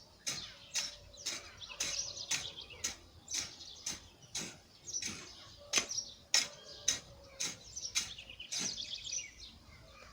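A digging tool striking the ground about twice a second while a hole is dug in soil, with birds chirping.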